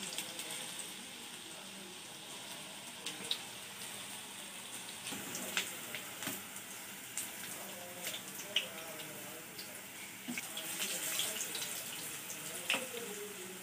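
Cabbage and onion bondas deep-frying in hot oil: a steady sizzle with scattered sharp pops and clicks.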